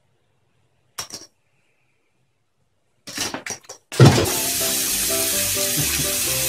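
Mostly quiet at first, with a brief noise about a second in and a few short sudden noises around three seconds in. From about four seconds in, background music plays over the steady hiss of a bathroom tap running into a sink.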